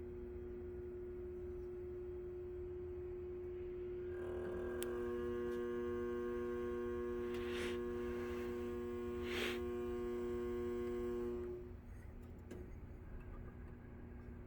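An electrical relay buzzing over a steady low hum: the buzz sets in about four seconds in and cuts off suddenly near the end, with two brief rushes of noise while it runs.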